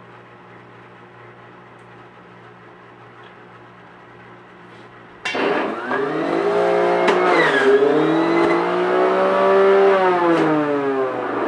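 Electric blender switching on about five seconds in and running at speed as it chops oregano leaves. Its pitch rises as it spins up, then dips and recovers under the load.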